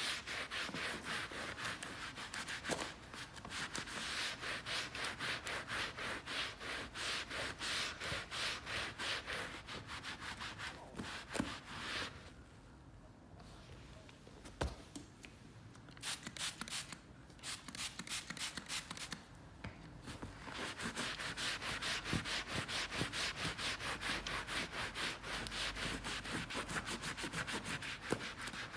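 Bamboo cleaning pad rubbed back and forth over a leather sofa cushion wet with foaming leather cleaner, in quick, even strokes that lift the surface dirt. The rubbing stops for a couple of seconds about halfway through, then starts again.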